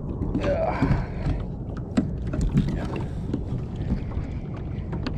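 Wind rumbling on the microphone and water lapping against a plastic Hobie kayak's hull. Scattered small clicks and knocks run through it, and there is a short rising tone about half a second in.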